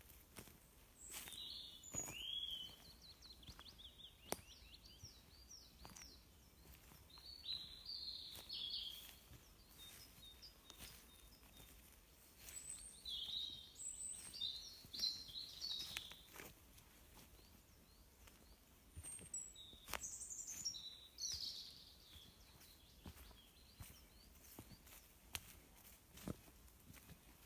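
Woodland songbirds singing in short phrases of high chirps, coming in bursts every few seconds over a faint steady background hiss, with a few scattered light clicks.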